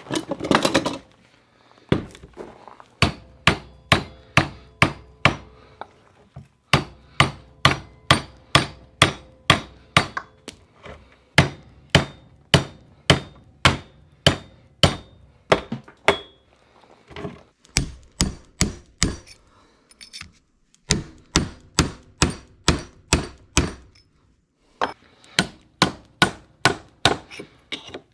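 A hammer striking metal in quick runs of sharp blows, about three a second, with short pauses between runs and a faint ring after the blows.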